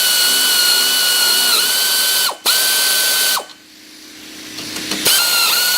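Power tool motor whining in three runs, with short pauses between them and the pitch dipping briefly as it loads up: the strut's top mount nuts being run down and tightened.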